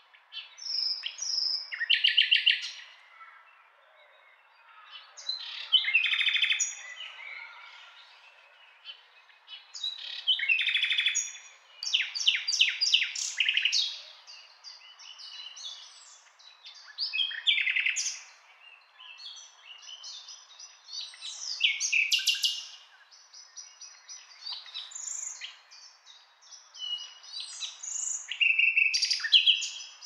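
Nightingale singing: varied phrases of fast repeated notes and short clear whistles, separated by pauses of a second or two.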